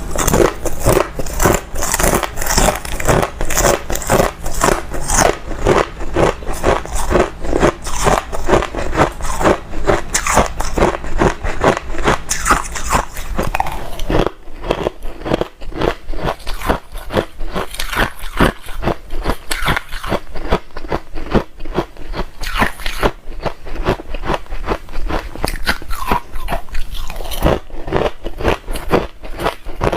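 Close-miked biting and chewing of hard ice: a rapid, continuous run of crisp crunches, several a second. A low steady hum under the crunching stops about halfway through.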